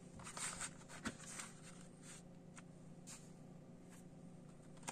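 Faint handling of a plastic CD jewel case as it is turned over and opened: soft rustling and scraping with a sharp plastic click about a second in, then a few lighter taps and a click near the end.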